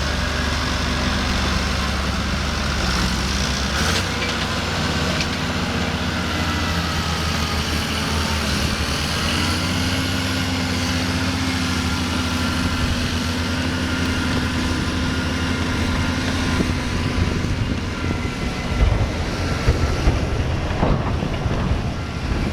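Tractor engine running steadily under load during ploughing; its note shifts slightly about 4 and 9 seconds in. It turns rougher and more uneven in the last few seconds.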